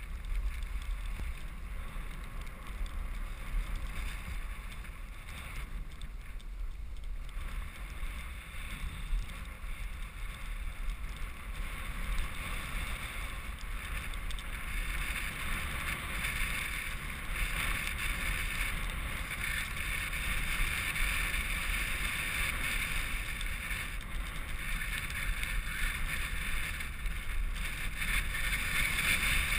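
Wind buffeting the microphone over a steady hiss of sliding over snow, the hiss growing louder and brighter in the second half.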